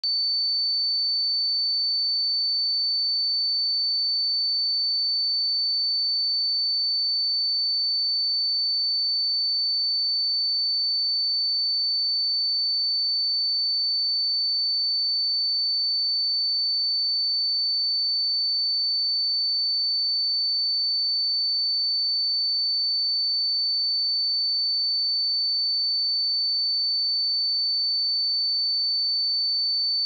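A pure 4528 Hz sine-wave test tone: one steady, high-pitched whistle with no change in pitch or level.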